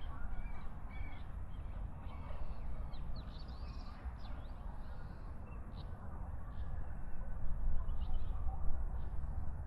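Several short bird calls and chirps repeating over a steady low rumble.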